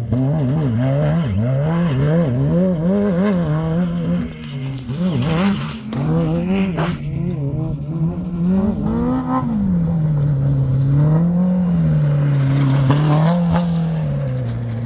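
Off-road racing UTV engine revving, its pitch rising and falling again and again as the throttle is worked over rough desert terrain. In the second half it settles into slower surges.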